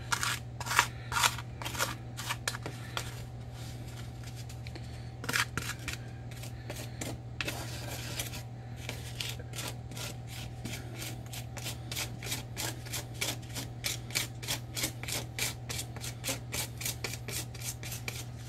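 Plastic spoon scraping and stirring a dry spice rub on a paper plate, mashing out clumps in rapid, repeated strokes. A steady low hum runs underneath.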